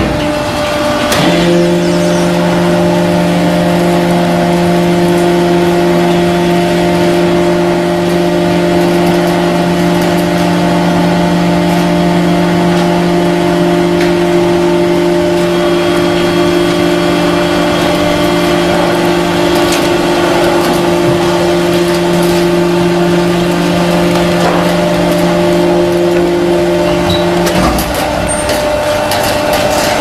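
Hydraulic power unit of a horizontal cardboard baler running under load with a loud, steady hum as the ram pushes a finished bale out of the chamber. The hum cuts out a couple of seconds before the end and starts again right at the close.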